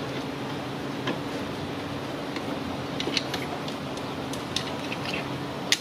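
A few light metallic clicks and taps as a screwdriver works the metal spring clip on a lower radiator hose, the sharpest near the end, over a steady background hum.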